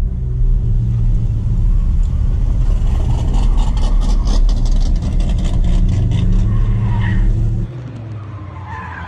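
Car engine running hard during an autocross run. The sound drops off abruptly near the end.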